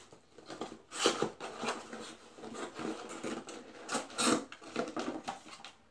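Small cardboard shipping box being pulled open by hand: flaps scraping and rubbing against each other, with two louder rasping strokes about a second in and about four seconds in.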